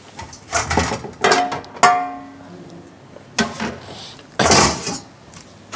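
Stainless steel cooking pots and lids knocking together on a gas hob: several clanks, one near the two-second mark ringing on like a struck bell, and two more clatters later.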